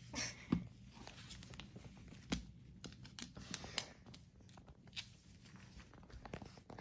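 Scattered light taps, clicks and rustles from a blue-and-gold macaw clambering about a mesh laundry basket and clothes, with a few sharper knocks, the loudest about half a second in and about two and a half seconds in.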